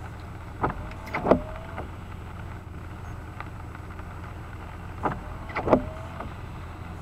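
Car windshield wipers making two passes about four seconds apart, heard from inside the cabin. Each pass is a few sharp knocks with a short rising squeal of the rubber blade on the wet glass, over a steady low hum.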